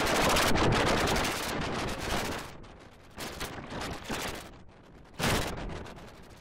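A rapid rattle of sharp cracks, like machine-gun fire. It is loud and dense for the first two and a half seconds, then comes in weaker, fading bursts, with one more loud burst about five seconds in.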